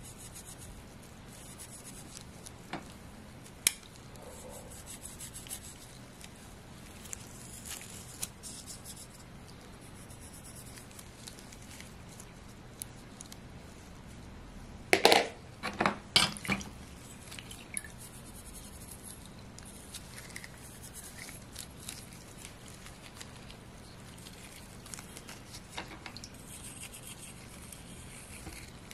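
Small metal and glass binocular parts clinking and knocking against each other and a plastic tub as they are handled and brushed clean, with a quick run of louder clinks about fifteen seconds in. Scattered light clicks and faint brushing fill the rest.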